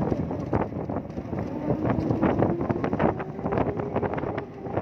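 Ola S1 Pro electric scooter's drive belt whining while riding at speed, a thin tone that rises slightly in pitch, under wind buffeting on the microphone. The owner takes it for belt noise from a new belt and motor not yet run in.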